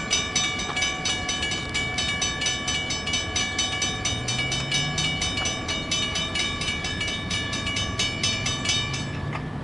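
Railroad grade-crossing bell ringing rapidly and evenly, about four strokes a second, stopping just before the end. Under it a low engine sound rises in pitch twice, about four seconds in and near the end.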